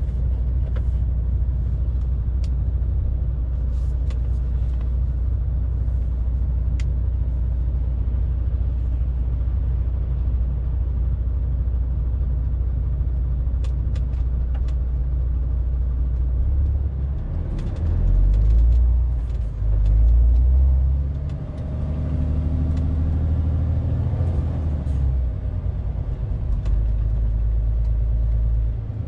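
Inside the cab of a MAN TGX 470 truck, its diesel engine drones steadily at low speed, with a few light clicks and rattles. A little past halfway the engine note twice grows heavier and louder, then rises in pitch as the truck pulls ahead, before settling back to a steady drone near the end.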